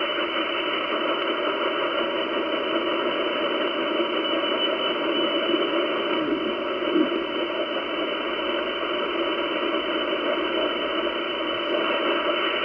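Icom IC-756PRO transceiver's speaker giving a steady hiss of 10-meter band noise while receiving on upper sideband, with no clear voice coming through.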